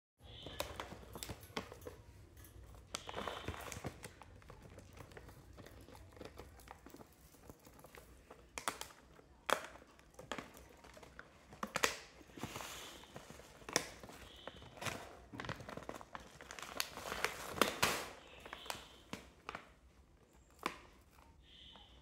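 Plastic seed packet crinkling and rustling as an Alexandrine parakeet bites and tugs at it, with irregular sharp clicks from beak and feet on the wire cage.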